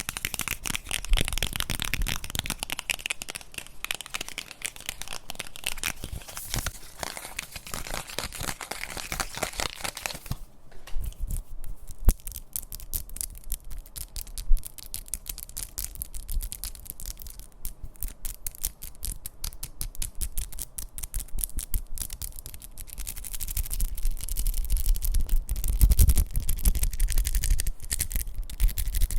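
Close-miked ASMR tapping: a fast, dense run of small taps and scratchy clicks on objects. About a third of the way in it thins to sparser, softer taps, then grows louder again near the end with deeper thuds among the taps.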